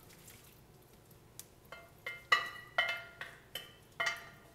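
A metal skillet clanking as food is scraped and knocked out of it into a ceramic bowl: after a quiet first second and a half, a quick run of about seven sharp knocks, each with a short ringing tone.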